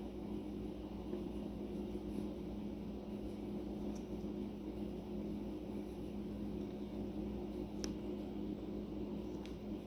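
Steady low droning hum with two held pitches over a low rumble, the unexplained noise heard at night, with a few faint ticks over it.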